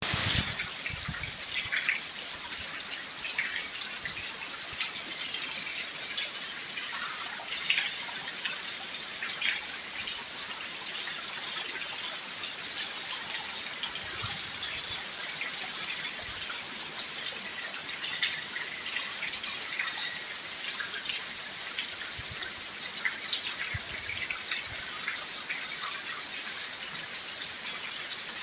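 Steady rain falling, an even hiss with scattered drips and taps, swelling slightly for a few seconds a little past two-thirds through.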